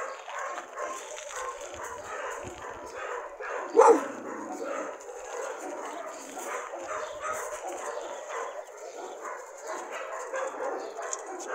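Dogs barking throughout, with one loud, close bark about four seconds in.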